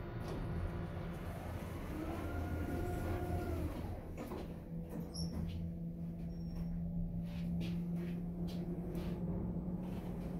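Schindler 5500 elevator doors closing: the door motor's whine rises, holds and falls over about two seconds and ends in a clunk about four seconds in. Then a steady low hum as the gearless belt-drive traction car travels upward, with a few light clicks.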